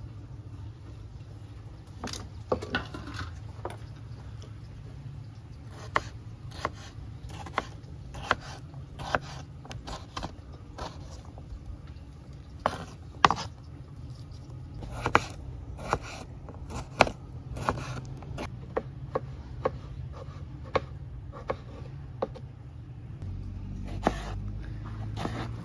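Knife cutting tomatoes on a wooden chopping board: a sharp knock each time the blade meets the board, every second or so, over a steady low hum.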